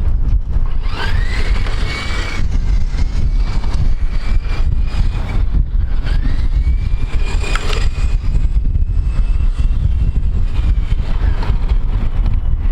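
Electric RC car motor whining as the car speeds up, its pitch rising and then holding, twice: about a second in and again about six seconds in. Under it runs a steady low rumble of wind on the microphone.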